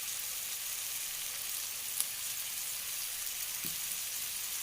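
Onion and tomato masala with ground spices frying in oil in a pan: a steady high sizzle, with a single sharp click about two seconds in.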